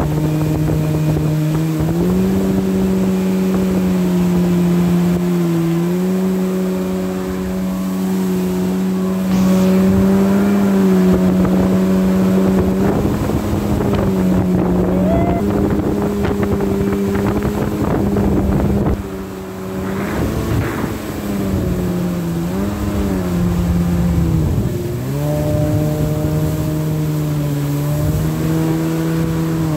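Jet ski engine running under way, a steady loud drone whose pitch shifts as the throttle is worked. The note dips and recovers several times in the second half as the throttle eases off and opens again.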